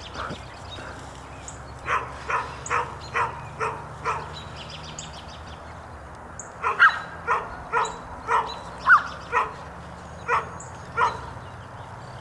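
A dog barking repeatedly in two runs: about five quick barks some two seconds in, then a longer run of about ten barks from the middle to near the end.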